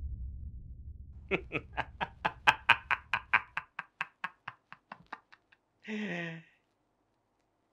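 A man laughing loudly in a long run of rhythmic "ha-ha" bursts, about five a second, growing fainter over about four seconds. The laugh ends in a short sigh that falls in pitch.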